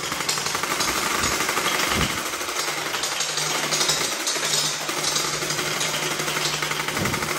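Electric gel ball blaster firing on full auto: a continuous rapid rattle of shots with a steady low motor hum that drops out twice.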